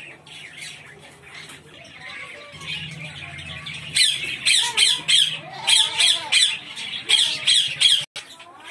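A parrot squawking loudly and repeatedly, about three harsh calls a second, starting about four seconds in after a few quieter calls.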